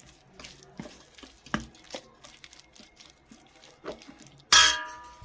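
Spoon stirring thick besan (gram-flour) batter in a bowl, with scattered clicks and taps of the spoon against the bowl. About four and a half seconds in comes one loud clang that rings on briefly.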